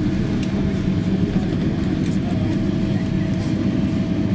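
Boeing 777 cabin noise during the landing rollout: the engines and the wheels on the runway make a steady low rumble, with a faint steady whine over it and a few light rattles.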